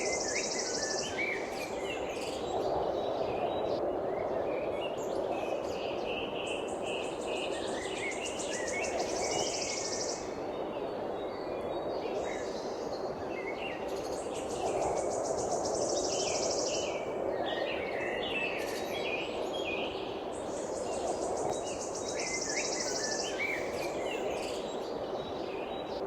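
Songbirds chirping and calling in short, scattered notes, with a high buzzing trill that comes back about every six seconds, over a steady low rushing background.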